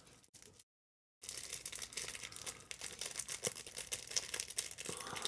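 Small plastic packet crinkling and rustling as it is handled and opened, starting about a second in.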